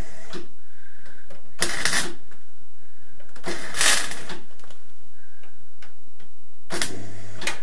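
Welding arc crackling in three short tack-weld bursts of under a second each, on a car's body sill. Each burst starts and stops abruptly.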